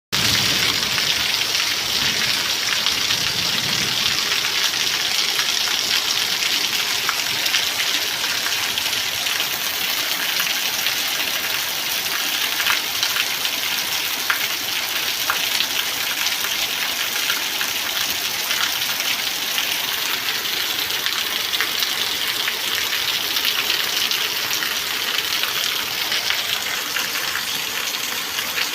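Rain falling steadily: a dense, even hiss with a fine patter of drops.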